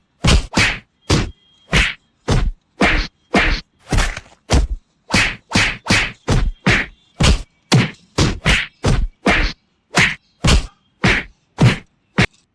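A steady run of sharp whacks, about two a second, each short and cut off cleanly with silence between.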